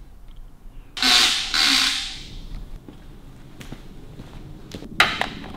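Workshop handling sounds: a loud rustling hiss about a second long, starting about a second in, then two sharp clicks near the end.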